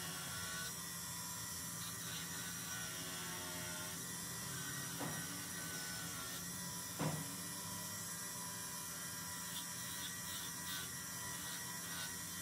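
Small bench grinder running steadily with an abrasive wheel spinning while the edge of a knife sheath is held against it for smoothing. A couple of light knocks come about five and seven seconds in.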